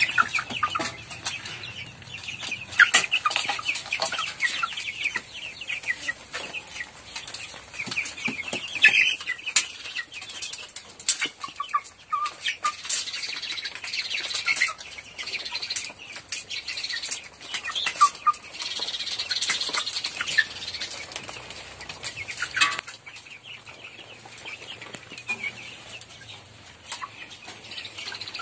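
A flock of young chickens clucking and peeping while feeding, with frequent sharp taps of beaks pecking at the feeder pans.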